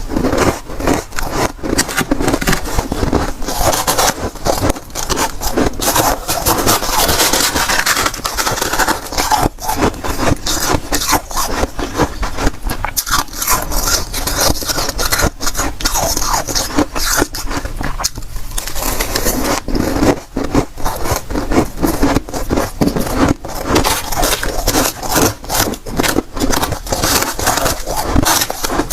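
Dry, soft freezer frost crunching and scraping close to the microphone, a dense, continuous crackle of tiny clicks with a brief lull about two-thirds of the way through.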